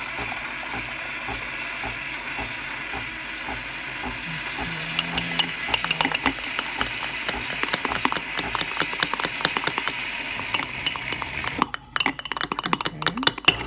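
Nespresso coffee machine dispensing and frothing milk for a latte: a steady hiss, joined from about the middle by rapid clicking and rattling that gets busiest near the end.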